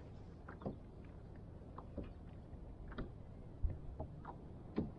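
Faint, scattered knocks and clicks, about two a second at irregular spacing, which the angler takes for a catfish sounding near the kayak.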